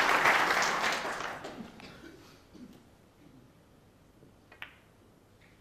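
Arena audience applauding a pot in a snooker break, the clapping dying away over the first two seconds. Then a quiet hall, broken about four and a half seconds in by a sharp click of snooker balls being struck, with a fainter knock just after.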